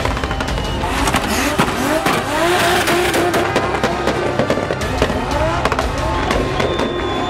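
Drift car's engine revving up again and again, with sharp crackling exhaust pops, as the car slides through its own tyre smoke.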